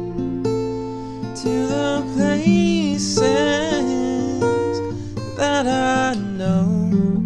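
Music: acoustic guitar playing, with a melody line over it that glides and wavers in pitch.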